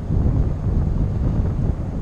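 Wind buffeting the microphone of a GoPro carried on a moving bicycle: a steady, fluttering low rumble.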